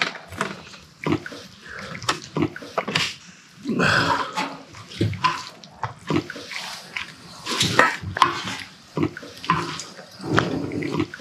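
Wooden spatula scraping and knocking against a pan as rice is mixed into the leftover pork and kimchi stir-fry for fried rice, in an irregular run of scrapes and taps.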